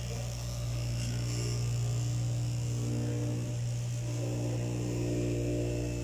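Electric straight-knife cloth cutting machine running with a steady hum.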